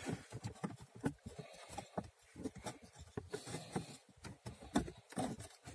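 A cabin air filter being worked by hand into its housing under the dashboard: irregular light knocks, clicks and rubbing of the filter against the plastic housing.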